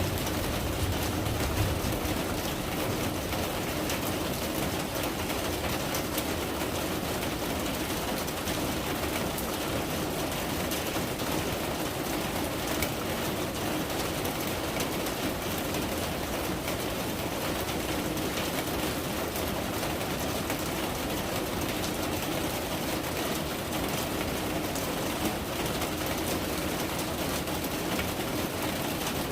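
Steady rain falling, an even hiss dotted with fine drop ticks.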